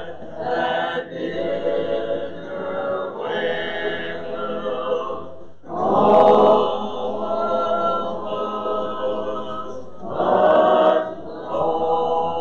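Unaccompanied hymn singing, long held notes in phrases with brief breaths between them, about six seconds in and again near eleven seconds.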